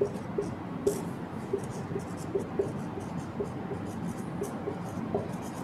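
Marker pen writing on a whiteboard: a quick, irregular run of short squeaks and scratches, several a second, as the letters and numbers are stroked out.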